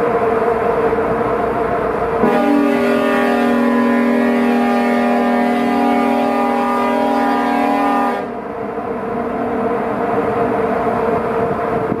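Large ferry's horn sounding one long, steady blast of about six seconds, starting about two seconds in and cutting off suddenly, over the steady drone of a ship underway.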